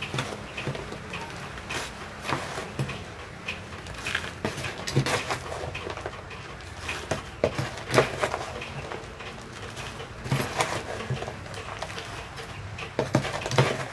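Small metal garden trowel scooping potting mix of garden soil, carbonized rice hull and pumice from a plastic tub and tipping it into a plastic nursery bag. Irregular scrapes and crunches, with soil pattering onto plastic, over a faint steady low hum.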